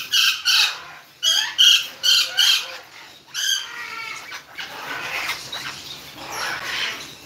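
Parrots in an aviary squawking: a quick run of loud, harsh calls in the first three and a half seconds, then quieter scattered calls.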